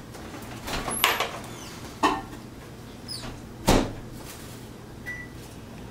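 A wire whisk stirring thick cake batter in a ceramic bowl, with scattered sharp knocks and clinks as it strikes the bowl and things are handled on the counter. The heaviest thump comes a little past halfway.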